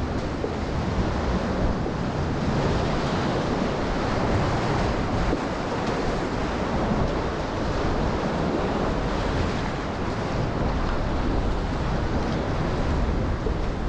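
Ocean swell washing steadily around the kayak, with wind buffeting the microphone.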